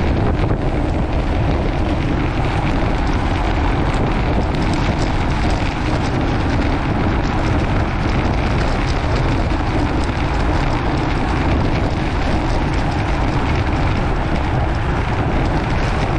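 Steady rush of wind over the microphone of a bike moving at about 25 mph, mixed with the rumble of bicycle tyres rolling over rough, cracked asphalt.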